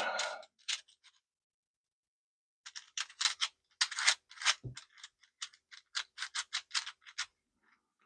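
Fully 3D-printed PLA Rubik's cube having its layers twisted by hand: a quick, uneven series of plastic clicks beginning after a short pause, with one low knock in the middle. The printed layers are still rough and not yet worn in.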